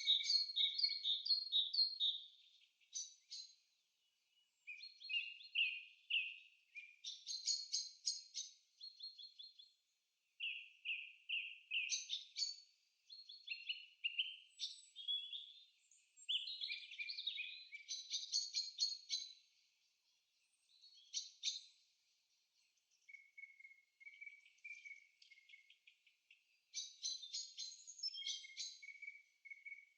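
Birdsong: a run of high-pitched phrases of quick chirping notes, each phrase a second or two long, with short pauses between them.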